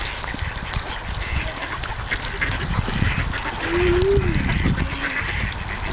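A flock of mallards quacking, a run of short calls that gets busier through the second half.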